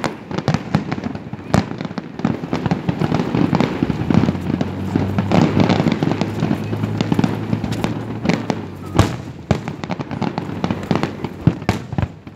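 Fireworks going off: a rapid, irregular run of sharp bangs and crackles.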